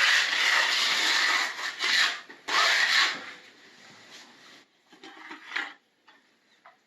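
Rough, rasping scraping, loud and nearly continuous for about three seconds with two brief breaks, then fading to a few faint, scattered scrapes and taps.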